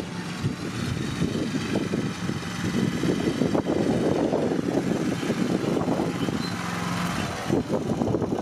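John Deere LX175 riding lawn tractor's engine running steadily as the tractor drives across the grass.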